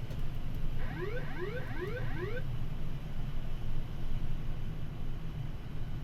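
Boeing 787-9 autopilot disconnect warning, the 'wailer': four quick rising siren sweeps about a second in, lasting about a second and a half, over the steady hum and air noise of the flight deck. It signals that the autopilot has been switched off for a hand-flown landing.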